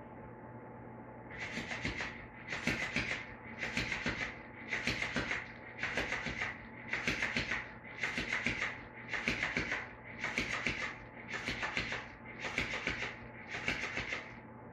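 Electric flopping fish cat toy flapping against a tile floor in short bouts of rapid clatter, about one bout a second, a dozen in a row, starting about a second in.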